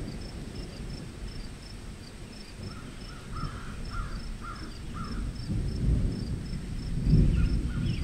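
Open-field ambience: a high chirp repeating evenly, about twice a second, throughout. A run of about five lower calls comes in the middle, and a low rumbling noise swells near the end.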